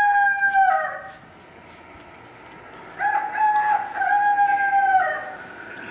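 A rooster crowing twice: the tail of one crow in the first second, then a full crow starting about three seconds in, each ending in a falling note.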